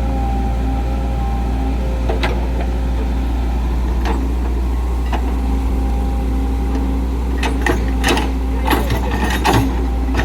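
Excavator's diesel engine running steadily with a deep rumble and a steady whine, with scattered knocks and a burst of clattering near the end.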